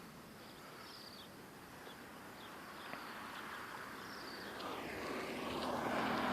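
Scattered short chirps from a large flock of birds over a steady outdoor hiss, with a passing vehicle's rumble growing louder over the last couple of seconds.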